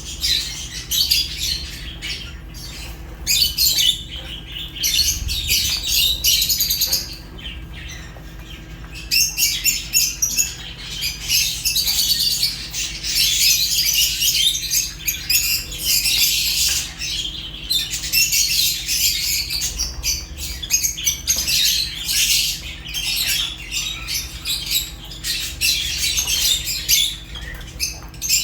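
Several lovebirds (Fischer's and rosy-faced) chirping and squawking in rapid, high-pitched, overlapping chatter, with a quieter lull about seven seconds in, over a faint steady hum.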